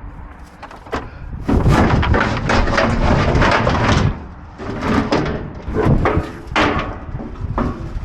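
Salvaged equipment and ducting being pulled and shifted around among scrap in a dumpster: a long scraping clatter for a couple of seconds, then several separate knocks and bangs.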